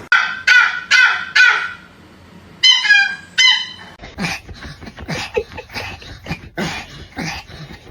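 A dog barking four times in quick succession, then a few high-pitched yips; after about four seconds, a run of shorter, quieter sounds.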